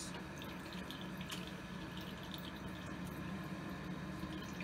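Bathroom sink faucet running steadily into the basin with its aerator removed, the aerator's screens having been plugged with dirt from the water lines.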